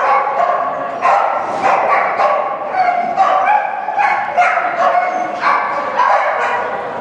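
Dog barking repeatedly and excitedly, about two barks a second with no pause.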